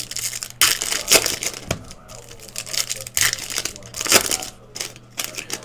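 Foil trading-card pack wrappers crinkling and tearing as packs are opened, in irregular crackly rustles.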